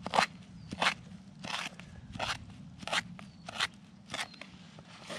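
Footsteps crunching on the ground at an even walking pace, about eight steps, each a short crunch.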